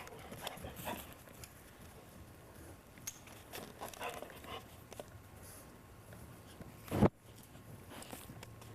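Faint scuffling and patter of small dogs moving about, with one loud, short thump about seven seconds in.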